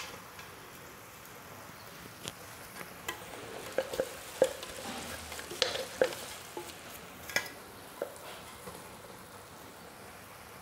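Sugar syrup simmering in a pan with a faint steady sizzle, while ground cashews are tipped in and stirred with a wooden spatula, giving a dozen or so sharp scattered clicks and taps.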